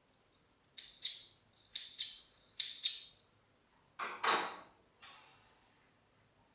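Small scissors snipping threads, three snips each heard as a pair of quick clicks, then two louder knocks about four seconds in and a brief rustle of fabric sliding over the machine bed.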